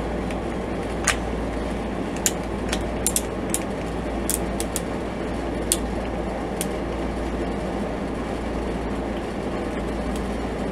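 Plastic joints and parts of a Playmates Legendary Green Lion action figure clicking as they are worked during its transformation: about a dozen short, sharp clicks, irregularly spaced, in the first seven seconds, over a steady low hum and hiss.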